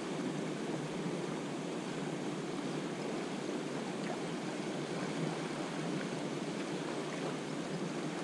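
A steady rushing noise with no distinct events or changes.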